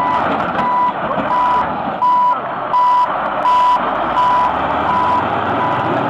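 Heavy-equipment backup alarm beeping at one steady pitch, about three beeps every two seconds, over the running of road-building machinery.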